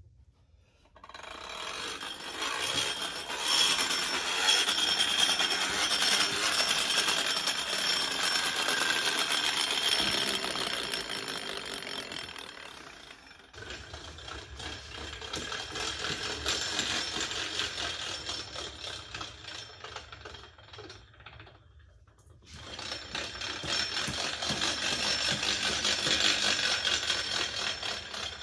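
Gear train and flywheel of a large, hand-machined flywheel-powered toy car whirring with a gear rattle, in three runs that each build up and die away, the first cut off abruptly. The builder believes the rattle means a poorly chosen gear or gears not meshed at the proper depth.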